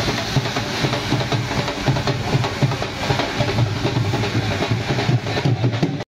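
Ground fountain fireworks spraying sparks with a loud steady hiss and crackle, over a dhol drum beating a steady rhythm.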